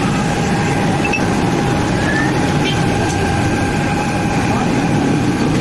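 Busy street noise: a steady traffic rumble with voices in the background and a continuous mid-pitched hum.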